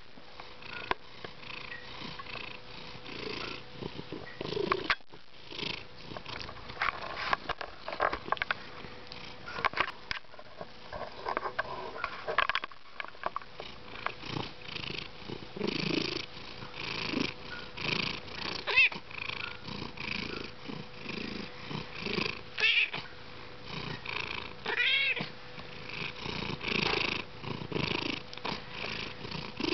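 Domestic black-and-white cat purring steadily close up, with a few short meow-like calls rising and falling in pitch during the second half.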